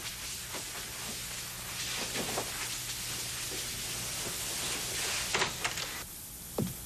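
Fabric rustling as a coat is pulled on over the shoulders, a soft hissing swish that fades near the end, with a few faint knocks and a low steady hum underneath.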